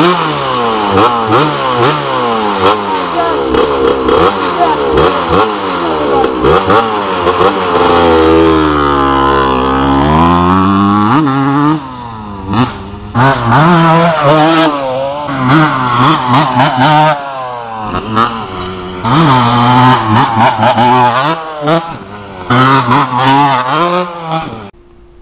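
Vintage Suzuki RM125's single-cylinder two-stroke engine revving up and down hard as the dirt bike is ridden, with a long sweep where the pitch falls and climbs back up about eight to eleven seconds in. The sound breaks off abruptly a few times and stops suddenly near the end.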